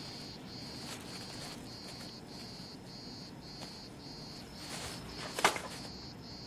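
Crickets chirping in an even, repeating pulse, a little under two chirps a second. A single short, sharp knock comes near the end.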